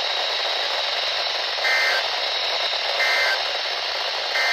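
Static-laden NOAA Weather Radio reception hissing steadily, broken by three short bursts of warbling EAS/SAME data tones spaced about 1.3 s apart: the end-of-message (EOM) signal that closes an alert.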